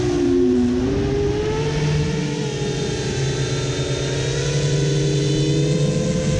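Whine of a 7-inch FPV quadcopter's four Brotherhobby Avenger 2806.5 1300kv brushless motors and propellers, heard from the onboard camera over a low rush of air. The pitch dips briefly about half a second in, then climbs slowly as throttle rises.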